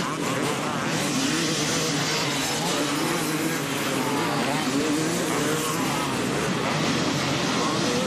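Several motocross dirt bike engines revving and racing past together, many overlapping engine notes rising and falling as the riders shift and throttle on and off.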